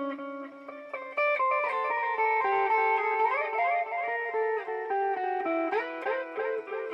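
Electric guitar played through a BOSS DD-8 digital delay pedal in Warp mode: picked notes with echoes repeating after them. Several notes slide up in pitch near the middle, and the playing gets louder about a second in.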